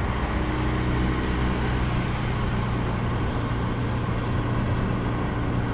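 Audi 5.2-litre V10 engine running steadily at low revs, its note holding level with no revving.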